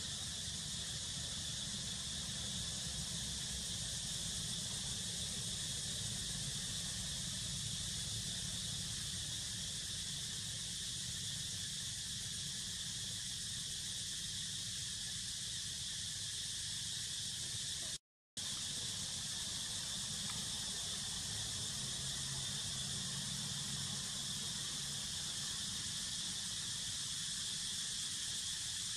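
Steady, high-pitched insect drone with a low rumble underneath, cutting out for a split second about eighteen seconds in.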